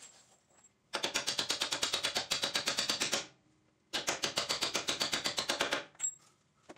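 Ratchet wrench clicking rapidly, about ten clicks a second, in two runs of roughly two seconds each, as it runs nuts down onto the rack-and-pinion mounting bolts.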